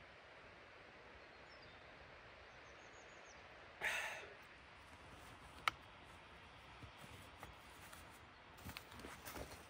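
Quiet forest ambience with a few faint bird chirps, while a hiker handles a water bottle and then his backpack: a brief loud rush of noise about four seconds in, a sharp click shortly after, and small rustles and clicks near the end.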